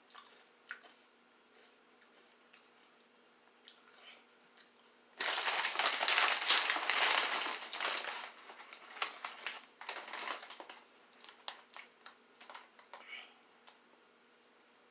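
A plastic tortilla chip bag crinkling loudly for about three seconds as a hand rummages inside it, starting about five seconds in, then scattered crackles and light clicks.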